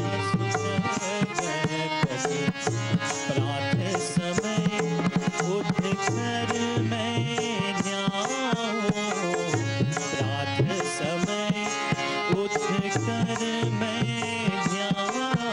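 Harmonium and tabla playing a devotional Hindu bhajan: a steady reedy melody over a running tabla rhythm.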